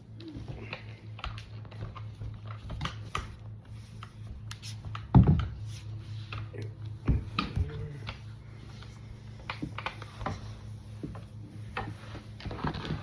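Scattered clicks and knocks of bar-stool parts and T-handle wrenches being handled during assembly, with a loud knock about five seconds in and another about two seconds later, over a steady low hum.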